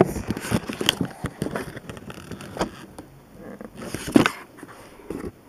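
Handling noise of toy packaging close to the microphone: irregular clicks, rustles and small knocks, with a louder knock about four seconds in.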